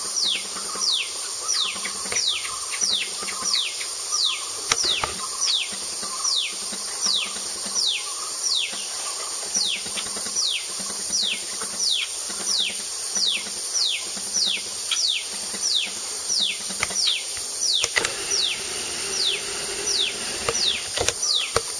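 A forest animal calling over and over: short high whistles, each falling in pitch, about two a second, over a constant high hiss.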